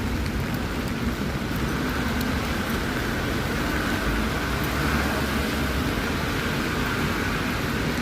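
Steady city street traffic noise from passing vehicles.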